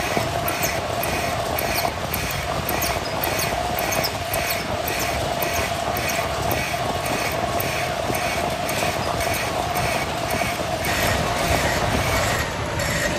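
Workshop machinery running steadily, with a constant hum and a regular beat about three to four times a second.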